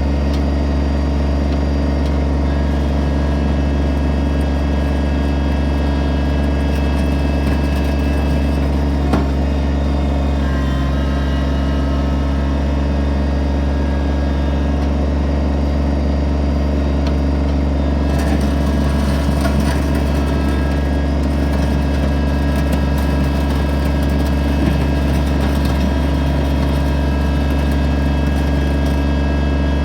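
Kubota BX25D compact tractor's three-cylinder diesel engine running at a steady speed with a constant low hum.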